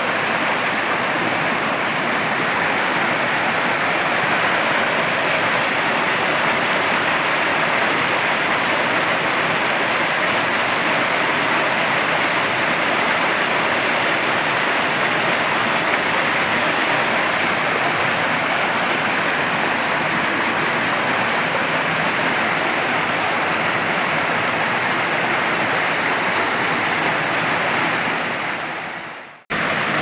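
Water from a small rocky waterfall cascading down over boulders into a stream pool, a steady rushing. About a second before the end it fades out briefly, then comes straight back.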